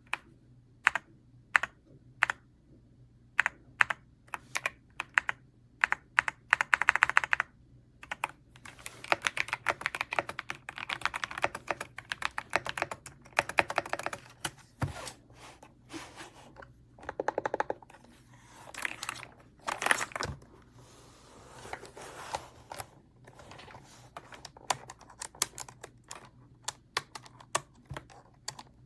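Keystrokes on a BOYI GMK67 gasket-mounted 65% mechanical keyboard: single key presses about once a second at first, then several fast runs of continuous typing.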